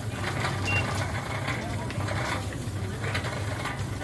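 Indistinct voices over a steady low hum, with one short high beep just under a second in.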